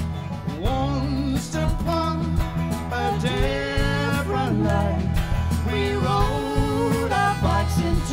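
Live band playing through a PA: strummed acoustic guitar, bass and drums, with a wavering lead melody line over them from about a second in.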